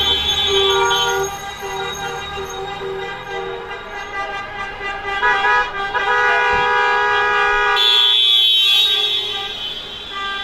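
Car horns honking as a line of cars drives slowly past, several long-held horns at different pitches sounding together over the engines and tyres. The honking is loudest in the first second and again from about halfway to near the end.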